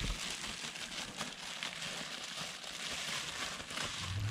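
Bubble wrap crinkling and rustling as it is handled and pulled off a piston, with many small crackles.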